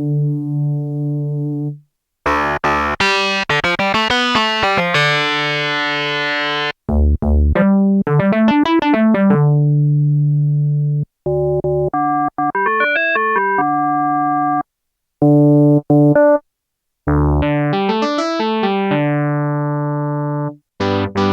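Korg opsix FM synthesizer playing an imported DX7 patch with a bright, keyboard-like tone. Short phrases of held chords alternate with quick runs of notes rising and falling, separated by brief silences.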